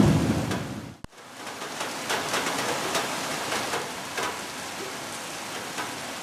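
The tail of a thunder rumble dies away. After a short break about a second in, steady rain falls, with many sharp little drop sounds through the hiss.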